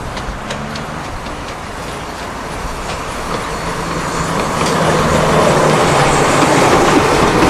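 Steam locomotive hauling a train of passenger coaches along the track, a dense rumbling clatter that grows steadily louder as it draws near.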